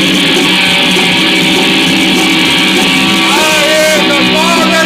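Rock song with guitar playing steadily; about three seconds in, a lead melody with bending, sliding notes comes in over it.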